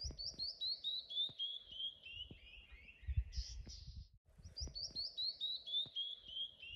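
A songbird singing a cascade of short downslurred whistled notes, about four or five a second, falling steadily in pitch and ending in a brief buzzy phrase; the song comes twice. A low rumble sits around the middle.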